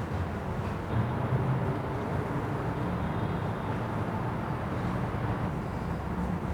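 Steady low rumble with a faint hiss, swelling slightly about a second in.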